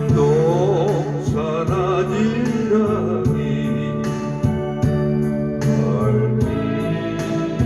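A singer sings a slow melody with vibrato over an electronic keyboard accompaniment of held organ-like chords and a steady rhythm-machine beat.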